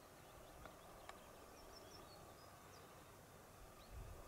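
Near silence: faint outdoor ambience with a few brief, faint high bird chirps about the middle.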